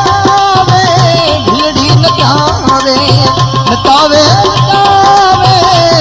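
Gujarati devotional bhajan music played live: a melody line over a steady tabla rhythm.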